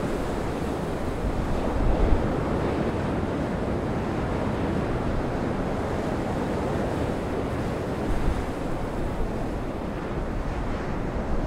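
Heavy storm surf in a gale breaking and washing over rocks, a steady rushing roar with swells of louder breaking about two seconds in and again about eight seconds in. Gale wind buffets the microphone throughout.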